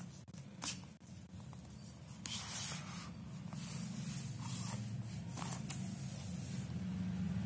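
Cardboard packaging rubbing and scraping as an inner tray is slid out of its box sleeve, with a sharp tap under a second in. A steady low hum sits underneath.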